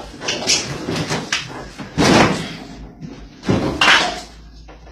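Bangs and slams against a refrigerator: several knocks in the first second and a half, then two loud slams about two and three and a half seconds in.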